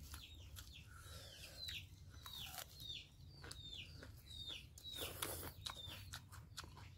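A bird chirping over and over: short, high notes that fall in pitch, about one and a half a second. Soft clicks of hand-eating and chewing come in between.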